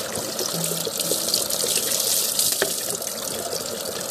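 Steady rain with water running and splashing, a continuous hiss.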